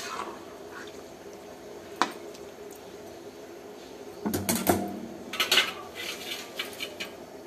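Metal spatula clinking and scraping against a metal kadai while stirring a thick curry: single sharp clinks at the start and about two seconds in, then a run of clatters and scraping from about four to six and a half seconds in.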